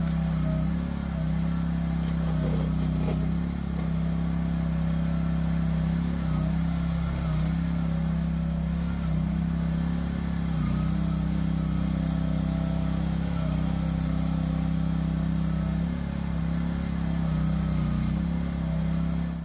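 The Briggs & Stratton 12.5 hp gas engine of an Agrotk QH12 mini excavator runs steadily while the boom, arm and bucket are worked. A second, higher tone joins the engine note about halfway through.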